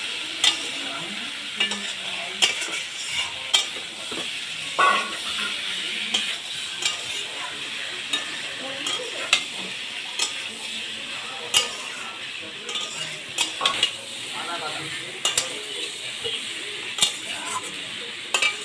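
Green jackfruit, potatoes and spices sizzling in hot oil in a metal kadai as a metal spatula stirs and scrapes them. The spatula clinks against the pan irregularly, about once a second, over a steady sizzle. This is the stage where the jackfruit is fried down with the spice pastes (koshano).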